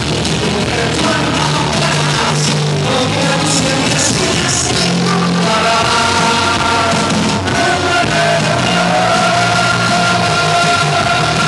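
Loud rock music with a man singing into a microphone, heard live in a hall. Long held notes come in the second half.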